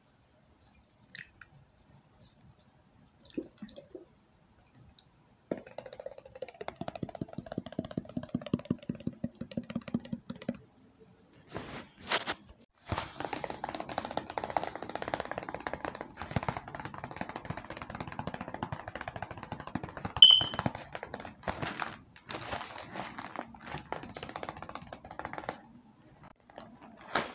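ASMR tapping on objects: a few light taps, then fast, steady tapping on something that gives a faint ringing note, then after a short pause a longer, denser run of quick tapping and scratching.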